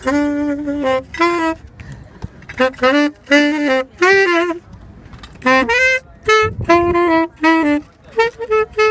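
A solo wind instrument playing a melody in short phrases of separate held notes.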